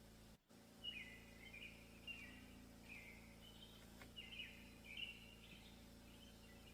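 Faint bird chirping: a run of short, high chirps repeated every half second or so, over a faint steady low hum. The sound drops out completely for a moment about half a second in.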